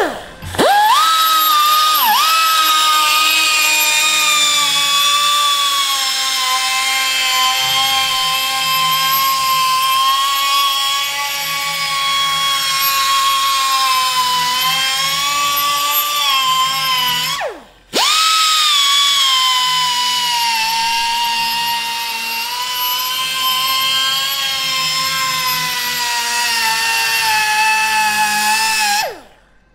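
Die grinder with a sanding disc grinding a chamfer into the inner edge of a metal exhaust riser pipe: a high whine that wavers slightly as the disc bears on the metal. The whine drops away and stops about two-thirds of the way through, starts again a moment later, and cuts off near the end.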